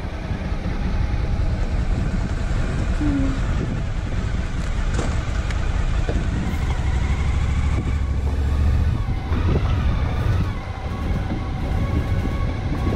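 Motorcycle engine running at low speed as the bike rolls slowly, heard from a helmet-mounted camera as a continuous low rumble.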